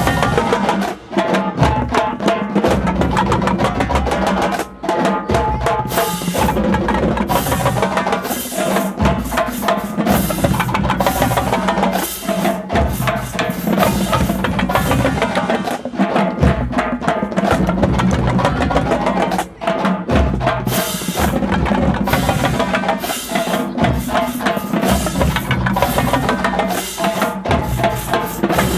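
Marching band drumline playing a percussion-only cadence: a dense, driving rhythm of drum strikes that runs without a break.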